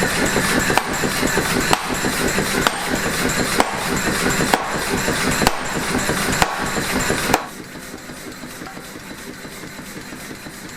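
Power hammer running, pounding hot mild steel with rapid blows and a heavier knock about once a second, then stopping abruptly about seven seconds in. A quieter steady machine hum carries on after it.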